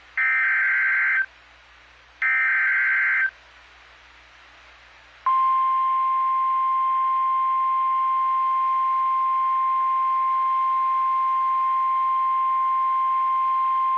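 Emergency Alert System SAME header bursts: two buzzy data screeches of about a second each, a second apart. About five seconds in, the steady single-pitch 1050 Hz NOAA Weather Radio attention tone starts and holds without a break. Together they mark the start of a new weather warning broadcast.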